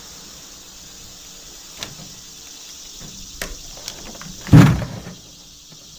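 Light clicks and taps of things being handled, then one loud thump about four and a half seconds in.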